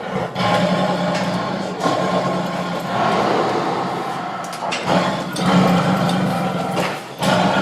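Tiger growling: a string of long, low, rumbling growls, about five in succession, each broken off by a short breath.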